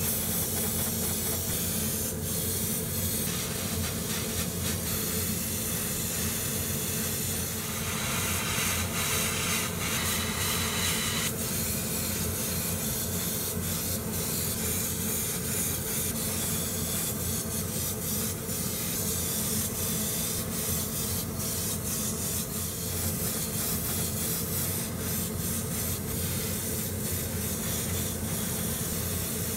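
Gravity-feed airbrush spraying paint in short, repeated bursts of hiss over a steady low hum. About eight seconds in, one longer, louder spray runs for some three seconds.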